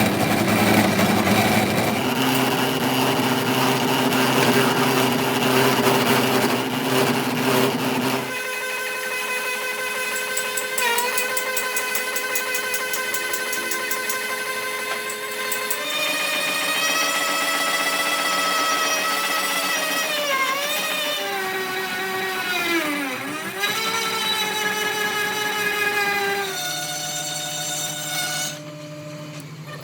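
Electric power tools running during metalworking on a gear: a steady machine whine that changes abruptly several times, with brief dips in pitch.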